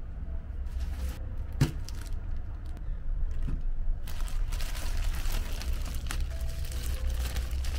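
Thin plastic bag crinkling and rustling as it is handled, with a few sharp clicks in the first couple of seconds and denser crinkling in the second half, over a steady low hum.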